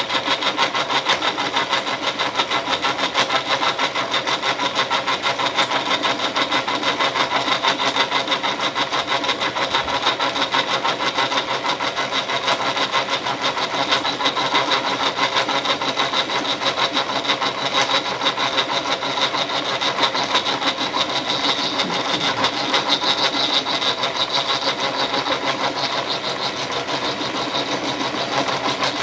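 Milling machine cutter taking a slotting cut in a metal bar for a vise handle: a steady, rhythmic cutting noise with a quick even pulse as the teeth bite.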